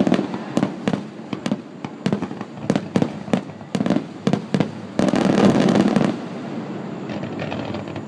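Fireworks display: a rapid, irregular series of sharp bangs from bursting aerial shells, with a dense stretch of booming and crackle at the start and again about five seconds in.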